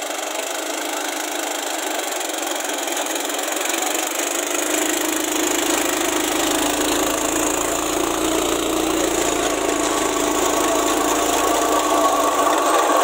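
Swaraj Code 12 hp mini tractor running with its rear rotary weeder churning through dry soil: a steady noisy grinding of blades in dirt over the engine. It grows steadily louder, with a low hum coming in about four seconds in.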